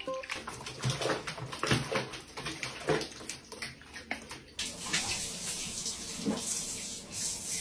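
Water splashing in a tub or sink, then running more steadily from about halfway through.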